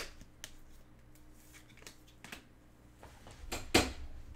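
A few small handling clicks over a faint steady hum, then about three and a half seconds in a louder scrape and knock as a squeaky office-type chair is scooted in.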